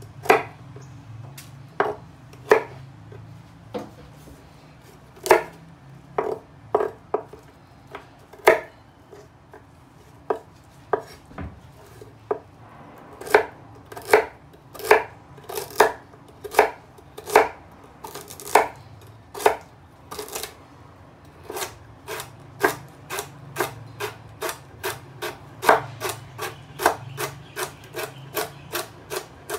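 Knife chopping kale stems on a wooden cutting board: sharp knocks of the blade against the board. They come spaced out at first, then faster and steadier, about two or three a second, through the last third.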